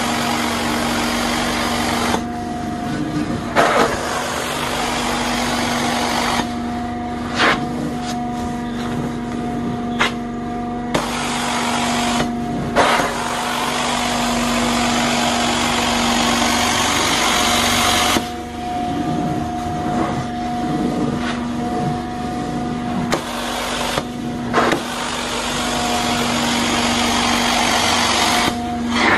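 Carpet-cleaning extraction machine running with a steady hum, its wand suction rushing as it is drawn across the carpet and dropping away several times when the wand is lifted, with a few sharp clicks.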